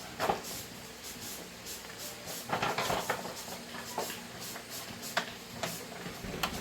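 Scattered light clicks and knocks of metal tools and small parts being handled during motorbike engine repair work, with a small cluster about halfway through.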